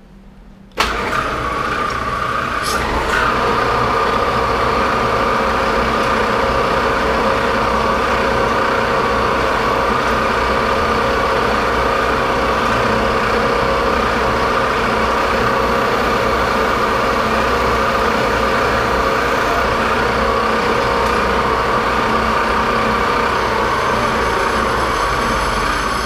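Martin lathe starting up about a second in, then running steadily at 1500 rpm with a constant hum and a steady whine.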